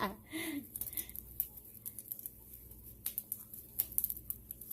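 Homemade slime being stretched and squished by hand, giving a scattered run of small sticky clicks and pops.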